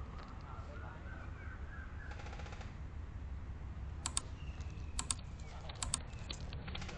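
Airsoft guns firing: three short, sharp bursts of shots about a second apart in the second half, after a faint rapid rattle a little after two seconds in.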